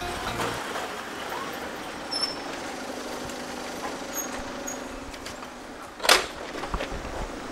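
Moped engine running as the rider comes in and stops, over steady outdoor traffic noise, with one sharp clunk about six seconds in.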